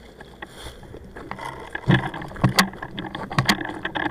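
Handling noise close to a head-mounted camera: rustling of clothing and gear, with a few irregular knocks and sharp clicks from an airsoft rifle being moved, most of them in the second half.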